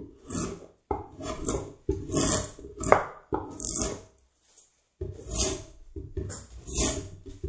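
Sharp hand edge tool shaving a wooden Windsor chair seat in a series of short, quick cutting strokes, roughly one a second, with a pause about four seconds in.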